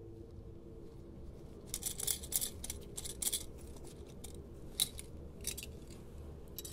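Sharp clicks and snips over a low steady hum: a quick cluster about two to three and a half seconds in, two single clicks later, and a louder one at the very end.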